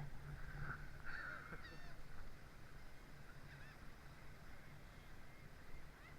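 Faint bird calls: a few short, curling honk-like calls about a second in, and fainter ones later, over a steady background hiss.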